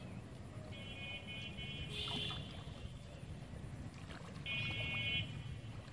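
River water moving around a person wading waist-deep, over a low steady rumble. Two brief high-pitched tones sound over it, one about a second in and a louder one near the end.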